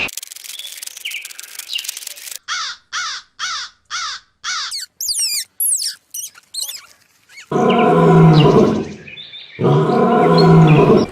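Animal calls: a run of about ten short, falling, chirp-like calls, then two long, loud, lower-pitched calls near the end.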